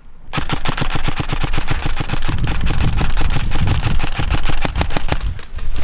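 Airsoft gun firing a long string of rapid shots, about ten a second, starting about a third of a second in, with a low rumble underneath.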